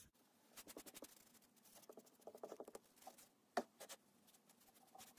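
Fingers and palms spreading mineral oil over a wooden cutting board: faint wet patting and rubbing in quick little taps, with one sharper click about three and a half seconds in.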